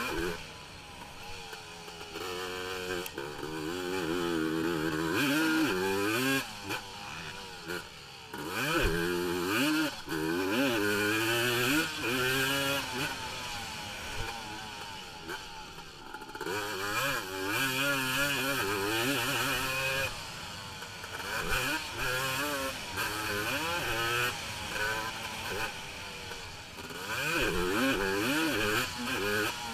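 Single-cylinder 450cc race quad engine, heard on board, revving hard and backing off over and over. Its pitch climbs and falls with each shift, corner and jump.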